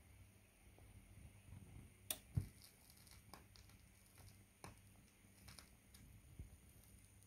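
Technics SL-3 linear-tracking turntable running, near silent: faint scattered clicks and ticks over a low hum, the loudest a pair of sharp clicks about two seconds in.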